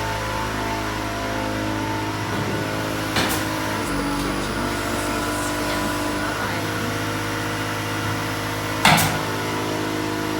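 Steady mechanical hum of a running motor, even and unchanging, with two short knocks: one about three seconds in and a louder one near the end.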